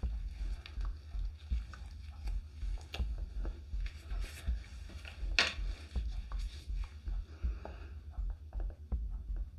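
Light scattered clicks and taps of plastic mixing cups and tools being handled while pigmented resin is poured, with one sharper click about five seconds in, over a low rumble.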